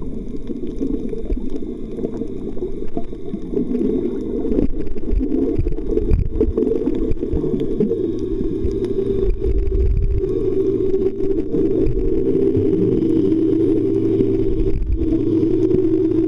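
Muffled underwater sound: a low, rumbling wash of moving water with almost nothing in the higher pitches. About ten seconds in, a steady low hum joins it and holds.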